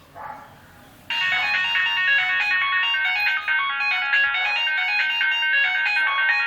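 A Nokia C1-00 mobile phone ringtone playing, starting suddenly about a second in: a quick run of bright electronic notes in a repeating melody.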